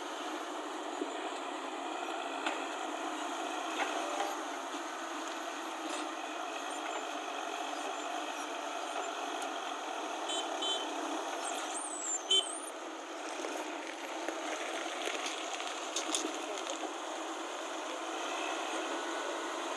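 A heavy vehicle's engine running steadily, with a few short knocks and clicks.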